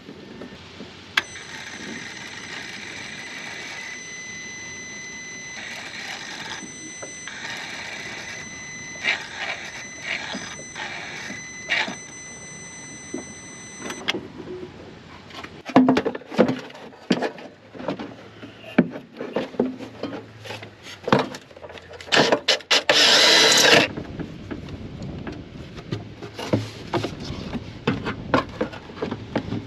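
Electronic throttle body with the key on: its motor holds the throttle plate with a steady high whine for about thirteen seconds, then stops. Scattered clunks and clicks follow, and near two-thirds of the way in a loud hiss-like burst of noise lasts about a second and a half.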